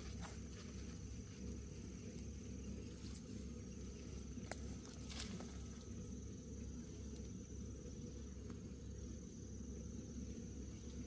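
Insect trilling steadily at a high pitch over a low, even rumble, with two sharp clicks near the middle.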